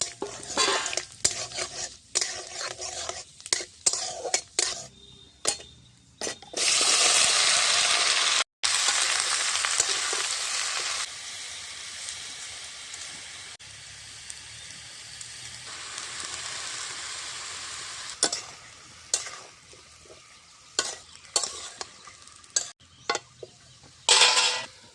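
Ginger, dried red chillies and panch phoron frying in hot oil, stirred and scraped in the pan. About six seconds in, a loud sizzle sets in; it eases over the next several seconds and fades out, and short stirring and scraping sounds go on to the end.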